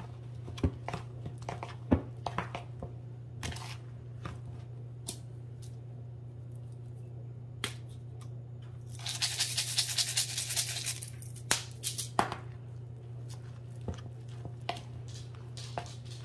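A metal spoon stirring thick cake batter dip in a bowl: soft scraping with scattered clicks of the spoon against the bowl, over a steady low hum. About nine seconds in, a rustling hiss lasts about two seconds.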